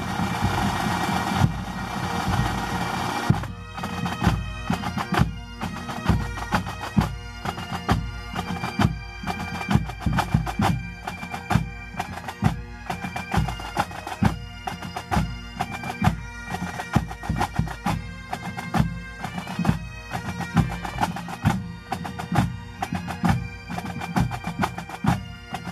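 Bagpipes and drums playing together, pipe-band style: the pipes' steady drone and melody over a fast run of drumbeats. The drumming starts about three and a half seconds in, after a noisy opening.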